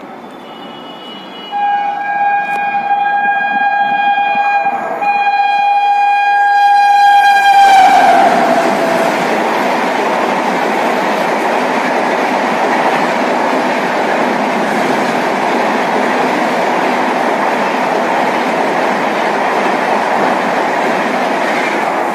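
WAP-7 electric locomotive blowing two long horn blasts as it approaches at speed, the pitch dropping sharply as it passes. Then comes the steady rush and wheel clatter of the express's coaches going by at speed.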